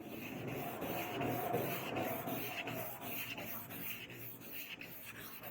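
Hand abrasion work: a steady rubbing of an abrasive worked back and forth over the piece in repeated strokes.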